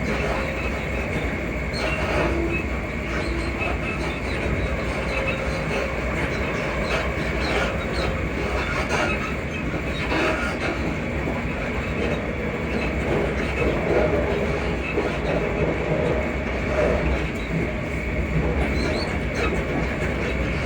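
Interior of a Class 334 electric multiple unit running along the line: a steady rumble of wheels on track with scattered clicks from rail joints, and short squeaks from the carriage suspension.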